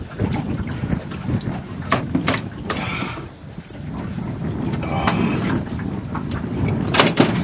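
Wind buffeting the microphone over the steady rumble of a small aluminium boat (tinny) afloat, with scattered knocks and clatter on its deck, and a louder cluster of knocks near the end.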